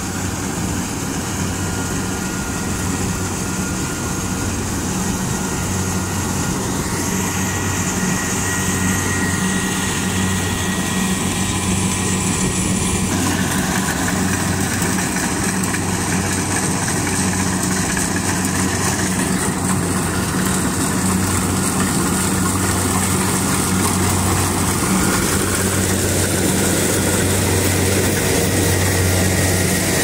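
Kubota DC-70 rice combine harvester running steadily while cutting rice: the diesel engine's even drone over the clatter of the header and threshing machinery. It grows louder near the end as the machine comes close.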